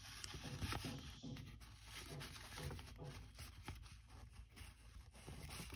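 Faint rustling and small crinkling ticks of 80 gsm paper being pinched and creased by fingers while making reverse folds.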